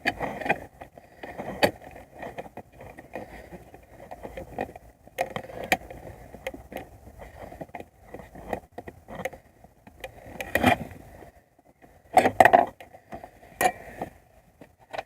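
Irregular clicks, knocks and light rattles of car parts and tools being handled during repair work, with a louder burst of knocks about twelve seconds in.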